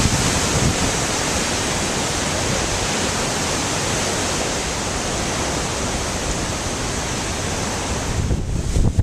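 Storm-force wind rushing in a steady, dense hiss. Near the end it turns gusty and buffets the microphone with uneven low thumps.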